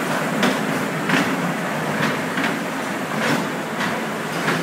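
Small kiddie-ride train rolling along its track, its wheels clicking over the rail joints about twice a second over a steady running noise.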